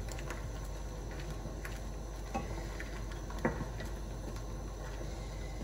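A pan of noodle soup simmering with small scattered pops, stirred with a wooden spoon that knocks lightly against the pan, twice a little louder in the middle.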